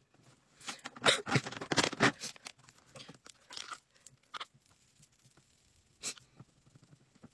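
Makeup being handled, with rustling and crackling as a palette and brush are picked up and moved. There is a dense burst of crackles from about one to two seconds in, then a few single clicks.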